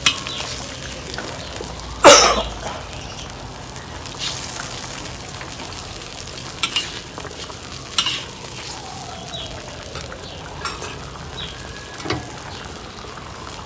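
Soy-sauce braising liquid sizzling and bubbling in a steel wok around a whole chicken, with scrapes and knocks of a metal ladle and wooden spatula against the wok as the chicken is turned. The loudest knock comes about two seconds in, with a few smaller ones later.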